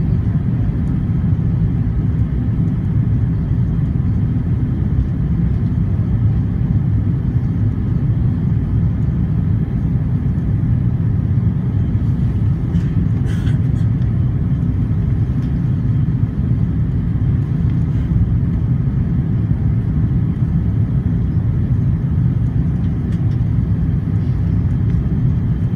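Steady low cabin rumble inside an Airbus A330-300 airliner, the Rolls-Royce Trent 700 engines and airflow heard from a window seat, with a faint click about halfway through.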